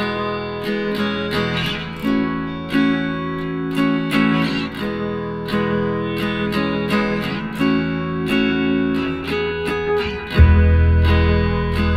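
Background music of plucked guitar chords struck at an even pace, with a louder deep bass coming in near the end.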